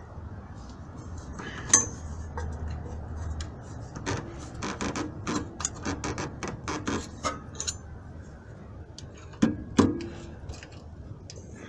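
Hand tools working on the rear anti-roll bar bushing bracket, metal on metal. There is a sharp click, then a run of about a dozen clicks at roughly three a second, then two loud knocks in quick succession near the end.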